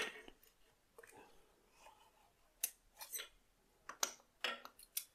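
Light metallic clicks and clinks of steel piston rings and hand tools being handled at the engine block. The short sharp ticks come irregularly, most of them in the second half.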